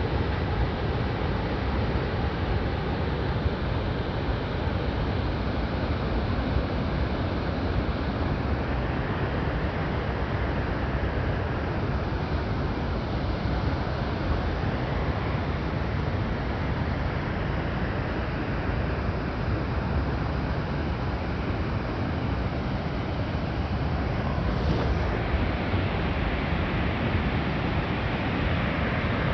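Harajiri Falls, a wide curtain waterfall, pouring steadily: a continuous, even rush of falling water.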